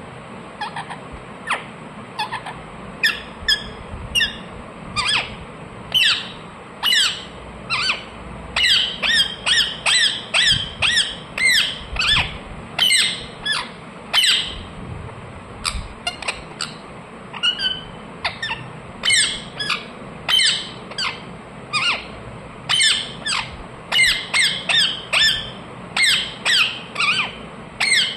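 Indian ringneck parakeet screeching loudly: a long run of short, sharp calls, each dropping in pitch. They start sparse and come about two a second from a few seconds in.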